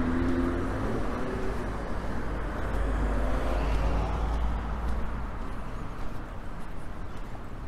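Street traffic: a motor vehicle passing close, its low engine rumble fading away after about five seconds, over a steady background of road noise.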